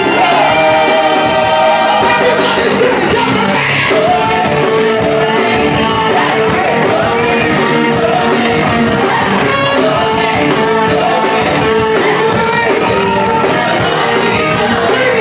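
Live gospel band performing loudly: a group of singers over drums and electric guitar.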